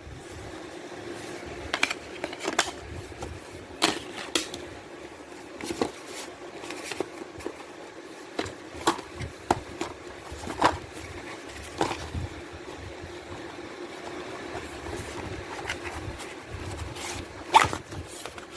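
Plastic DVD case and discs being handled, with scattered clicks, taps and light scrapes over a steady low hum.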